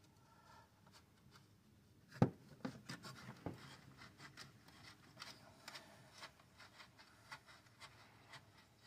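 Plastic cowl drip tray being handled and pushed into place: a sharp knock about two seconds in, then a run of light, irregular clicks and plastic rubbing on plastic.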